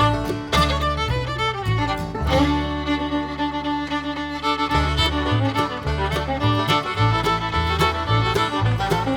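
Background music: an upbeat fiddle-led tune over a steady, driving beat, with a pause in the beat around two to five seconds in.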